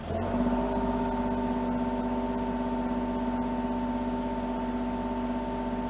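Kubota mini excavator's engine and hydraulics under load as the bucket is curled: a steady whine comes in suddenly at the start and holds unchanged.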